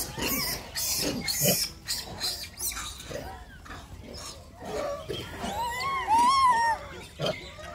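Rhesus macaque calling: harsh, noisy grunting sounds in the first few seconds, then a quick string of short rising-and-falling squeals near the end, the loudest part.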